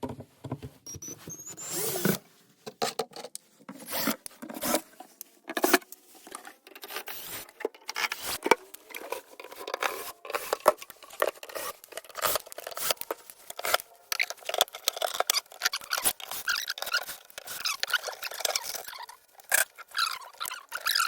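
Irregular clicks, taps and short scrapes of a Focusrite Scarlett 18i20 audio interface's casing being handled and opened.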